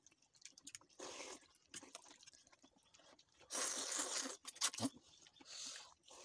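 Eating noodle soup: a long wet slurp of noodles about three and a half seconds in, with shorter slurps and chewing around it and a few light clinks of the metal fork and spoon.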